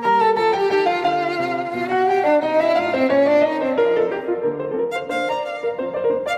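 Background music: a violin playing a flowing melody with vibrato.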